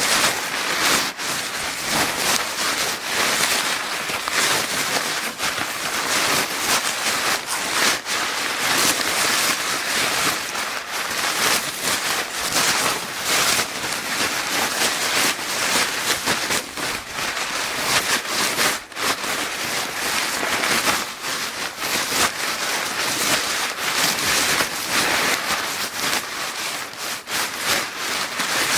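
Paper bag crinkling continuously: a dense crackling hiss of rustles and small sharp crackles, with no pauses.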